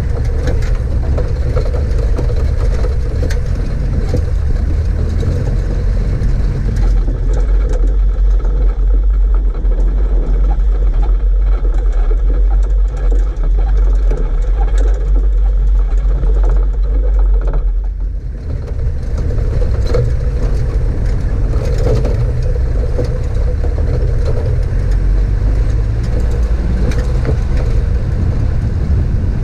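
Four-wheel-drive vehicle driving over a rough, rocky track: a steady low rumble of engine and tyres with scattered knocks and rattles, heard from a camera mounted on the bonnet. The rumble briefly drops about 18 seconds in.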